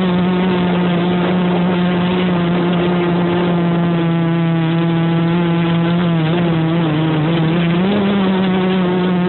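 Quadcopter's electric motors and propellers whining loudly at a steady pitch, heard close up from a phone mounted on the craft. A little past halfway the pitch sags for over a second, then climbs back as the throttle changes.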